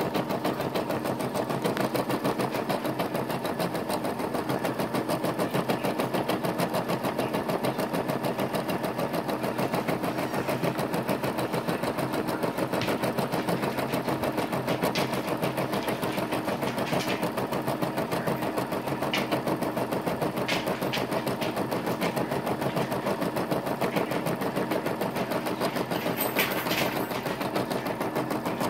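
Brother SE425 embroidery machine stitching a butterfly design into quilted cotton fabric held in its hoop: a rapid, steady mechanical clatter of the needle stroking up and down, running evenly without a break.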